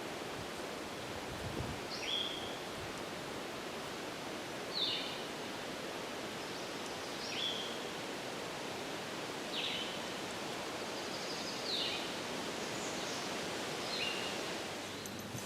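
Wind rustling through the trees, with a bird giving a short, high, falling call six times, about every two and a half seconds.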